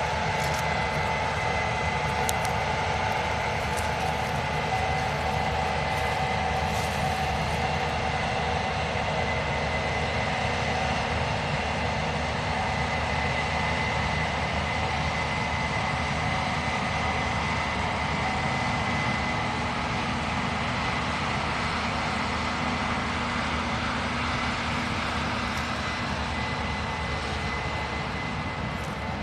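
Case IH combine running steadily while harvesting soybeans: the engine and threshing machinery drone, with a steady high whine over it.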